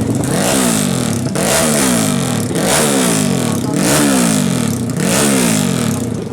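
Fuel-injected 450cc drag-race motorcycle engine with twin mufflers being revved hard in five quick throttle blips, each rising sharply then falling back toward idle.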